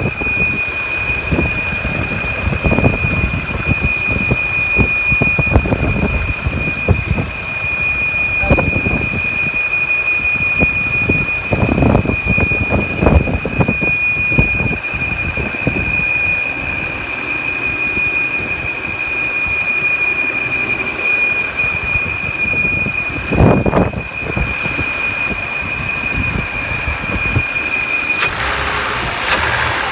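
Car engine running with a steady high-pitched whistle over the lower engine noise. The whistle cuts off near the end as a broader engine noise rises.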